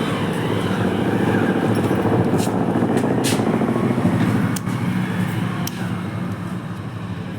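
Hero Honda Passion Pro's single-cylinder four-stroke engine running steadily after repair, easing off and settling lower about four and a half seconds in. A few short sharp clicks sound over it midway.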